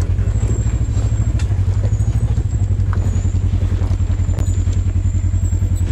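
Polaris RZR 900 side-by-side's twin-cylinder engine running at low speed as it crawls over a rocky dirt trail, a steady low pulsing rumble with a few faint clicks.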